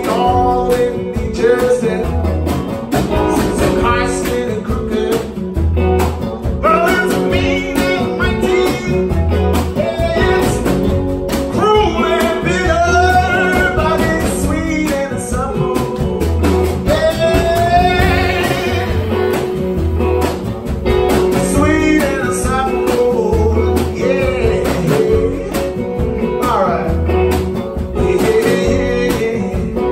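Live music from a hollow-body archtop electric guitar and an upright double bass, with a man singing over them.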